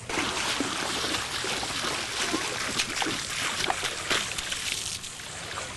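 Shallow water splashing and crackling as feet kick through the surf at the water's edge. It begins suddenly and dies down near the end.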